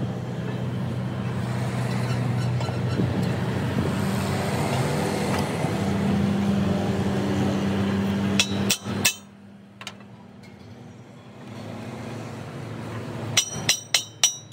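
A machine runs with a steady low hum, then cuts off abruptly about nine seconds in. Near the end comes a quick run of sharp metallic strikes that ring, like hammer blows on steel.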